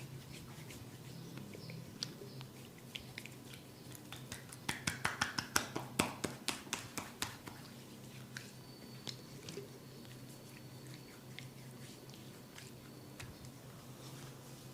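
Oily head massage: faint wet rubbing and small clicks of hands working through oiled hair, with a quick run of about a dozen sharp snaps a few seconds in.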